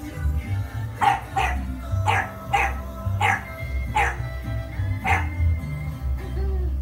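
English bulldog puppy barking in short, high yaps, about seven between one and five seconds in, frightened by a pair of slippers. Background music with a steady beat plays underneath.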